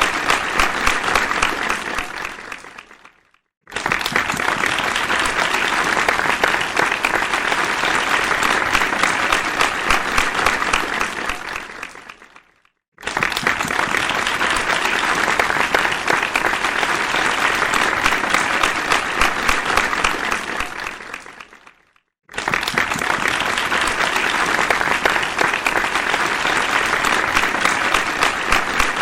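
Crowd applause: a large audience clapping densely. Each burst dies away over about a second to silence and the next starts again abruptly, three times.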